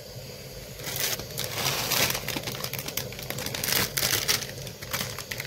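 Plastic instant-noodle packets crinkling in irregular bursts as they are handled and opened.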